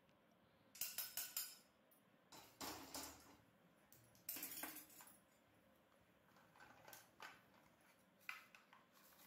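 Dry-roasted mustard seeds rattling against metal as they are moved from a kadai onto a steel plate, in a few short, faint spills and scrapes with quiet between.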